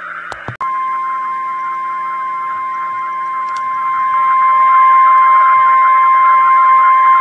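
Weatheradio Canada 1050 Hz warning alarm tone: one steady, high, single-pitched beep that cuts in abruptly about half a second in after a couple of clicks and grows louder around four seconds in. It sits over steady radio receiver hiss and hum.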